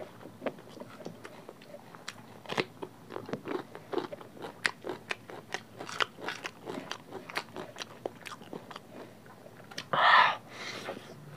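Close-miked chewing and wet lip-smacking of curry with rice and vegetables eaten by hand, many small clicks in an uneven run. A short loud hissing burst about ten seconds in, then a fainter one.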